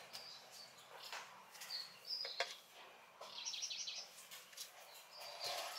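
Small birds chirping now and then in short, high calls, with a quick trill a little past the middle. Faint clicks and handling of wires and a speaker mixed in, the sharpest click a little before the middle.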